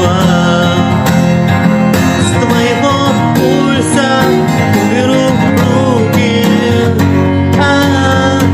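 A song on acoustic guitar, strummed in a steady rhythm, with a voice singing the melody over it.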